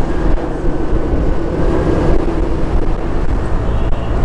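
Motorcycle engine running steadily at road speed, with wind rumbling on the microphone; the engine note swells briefly about halfway through.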